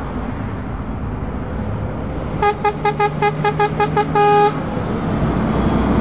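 Truck horn sounding a rapid string of about eight short toots, about five a second, ending in a slightly longer blast, over the steady running of truck engines.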